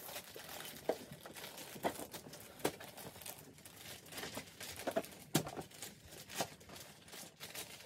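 Wrapping paper crinkling and rustling as a gift is wrapped, with scattered light taps and clicks.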